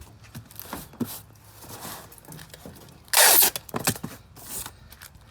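Packing tape pulled off the roll with a short, loud screech about three seconds in, then a few taps and rubs as it is pressed onto the cardboard box. Faint rustling of handling before it.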